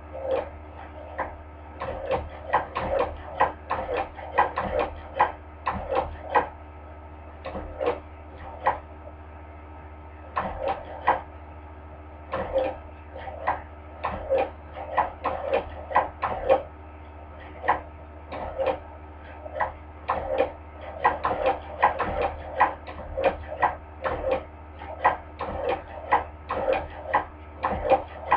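Hand-crank cobbler sewing machine stitching, its needle mechanism clacking with each turn of the crank. The crank is turned slowly and unevenly, about two or three clacks a second in runs, with short pauses between.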